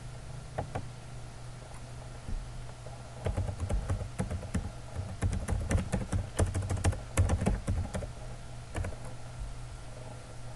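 Typing on a computer keyboard: a few single key clicks near the start, then a quick run of key clicks through the middle, over a steady low hum.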